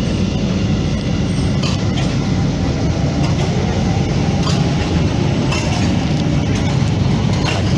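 Steady low rumble of a moving vehicle, with scattered clinks and rattles.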